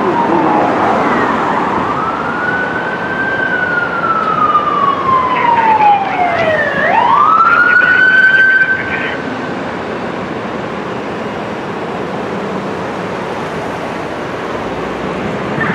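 Fire department rescue ambulance siren wailing: the pitch slowly falls, sweeps sharply back up and holds, then cuts off about nine seconds in, leaving steady traffic noise.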